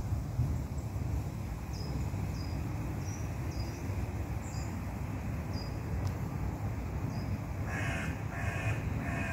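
A crow cawing three times near the end, harsh calls of about half a second each, over a steady low rumble, with faint short high chirps earlier on.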